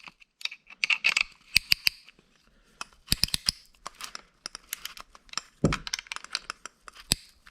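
Piston ring compressor being cranked tight around a piston with its key: irregular runs of sharp metallic clicks and clinks, with a duller knock a little before the end.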